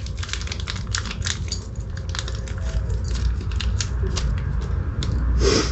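Small plastic bag of chain connecting-link parts being handled and opened: a run of quick, irregular crinkling clicks as the bag and the little metal pieces inside are worked.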